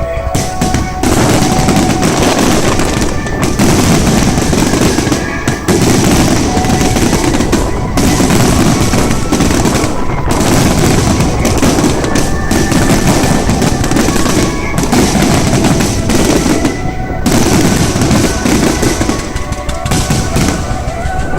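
A fireworks display going off without pause: a dense, rapid run of bangs and crackling from many shells, with music playing underneath.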